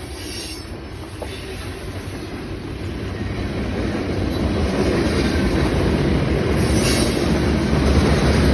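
Norfolk Southern freight train rolling past, a low rumble with wheel-and-rail noise that grows louder over the first few seconds and then holds steady.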